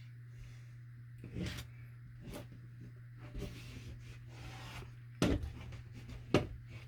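Handling sounds as fiberglass mesh tape is worked onto a drywall patch: scattered soft rubs and knocks, with two sharper knocks near the end, over a steady low hum.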